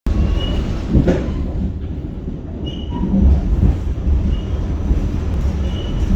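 A New York City subway train (A line) running on the rails with a steady low rumble. A sharp clunk comes about a second in, and short high wheel squeals recur every second or two.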